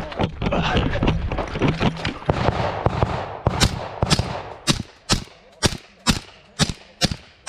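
Footsteps and rushing movement noise of a shooter running up for about three and a half seconds. Then an HK Mark 23 .45 ACP pistol with an Octane 45 HD suppressor firing at an even pace, about two suppressed shots a second, eight shots in all.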